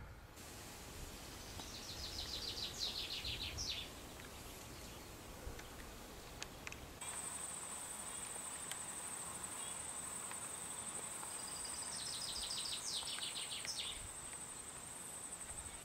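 Quiet bush ambience: a songbird sings a short, quickly falling series of notes twice, and about halfway through a steady high-pitched insect trill starts abruptly and runs on.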